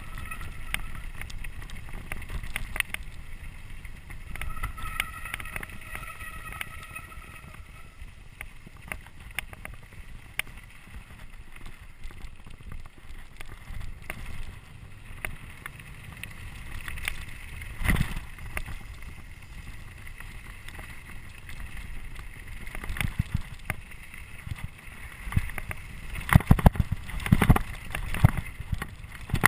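Trek Remedy 8 full-suspension mountain bike riding fast downhill: tyres crunching on a gravel track, with wind on the microphone and the bike rattling. A brief high squeal comes twice in the first seven seconds. Near the end, on rough dirt singletrack, hard knocks and clatter come from the bike hitting bumps.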